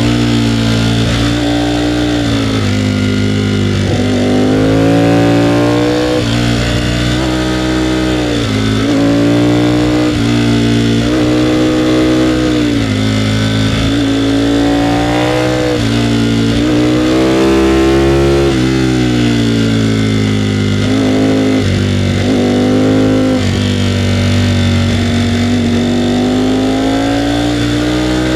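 Ducati Panigale V4R's V4 engine under way, repeatedly revving up and rolling off, its pitch climbing and then dropping every two to three seconds as the bike accelerates and slows through a run of tight curves.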